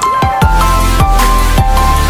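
Background electronic music: a synth melody of held notes over heavy bass and drum hits.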